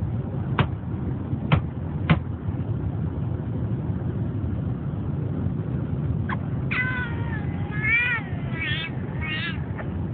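Teacup Pomeranian whining: a string of about four high, wavering whines in the second half, each rising and falling in pitch. Three sharp clicks come in the first two seconds, and a steady low rumble of car cabin noise runs underneath.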